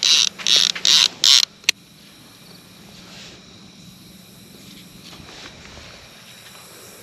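Baitcasting reel's line clicker buzzing in a quick series of short bursts as a hooked fish pulls line off the spool, then a single sharp click about a second and a half in as the reel is engaged.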